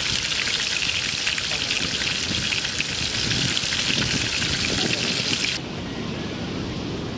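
Hot oil sizzling hard around a large masala-coated fish deep-frying in an iron kadai, a dense crackling hiss. It cuts off abruptly about five and a half seconds in, leaving a quieter, steady low outdoor noise.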